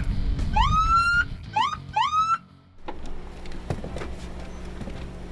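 Police car siren giving three short rising whoops, over background music that cuts out after about two and a half seconds. A low steady hum follows.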